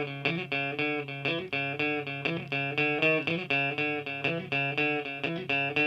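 A solo guitar picks a repeating arpeggiated figure, about four notes a second, over a held low note. It is quiet and sparse, with no drums.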